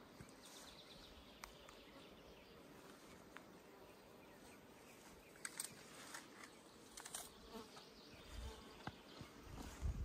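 Faint buzzing of a flying insect, with a few soft clicks in the second half.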